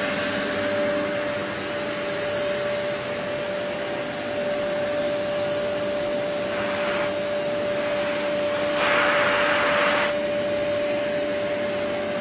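OneConcept Clean Master 700-watt bagless cyclone vacuum cleaner running steadily, a motor hum under a rush of air. The air noise swells briefly twice, around the middle and again about nine seconds in.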